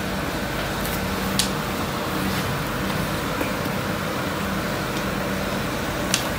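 Steady hiss with a low hum from a running fan-type machine, with two light sharp clicks, one about a second and a half in and one near the end.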